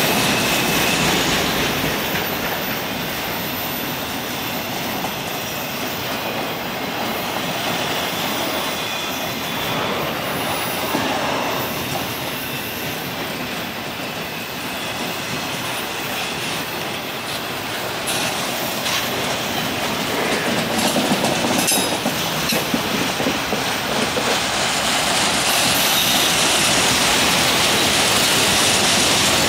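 Autorack freight cars rolling past on steel wheels: a steady rumble and rattle of wheels on the rail, with a thin wheel squeal near the start and a few clicks over rail joints. The wheel noise grows louder near the end.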